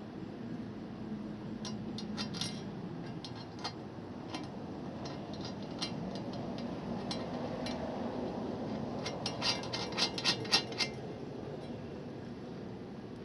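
Metal tools and mounting hardware clinking and clicking against each other and the side-step brackets. The clinks are irregular, with a few near the start and a quick flurry of louder ones about ten seconds in.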